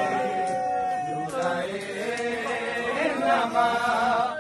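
Men's voices chanting a noha, a Shia mourning lament, in long held melodic lines that slide between notes.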